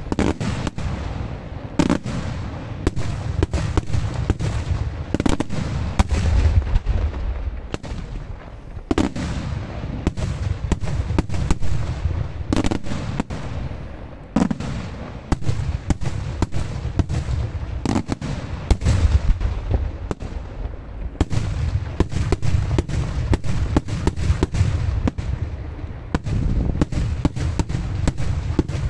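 Daytime aerial fireworks bursting overhead: an irregular, continuous string of sharp bangs, several close together at times, over a dense low rumble of overlapping reports and echoes.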